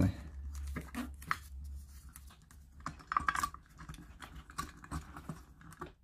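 Electrical insulation tape being wrapped around a wired switch connector, with scattered small clicks and crackles of tape and fingers handling the wires, over a steady low hum.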